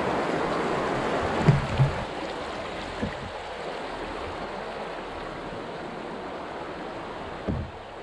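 Rushing water of a grade II river rapid around an open canoe, a steady wash that is louder for the first two seconds and then eases. A few short dull thumps stand out, two close together about a second and a half in, one at three seconds and one near the end.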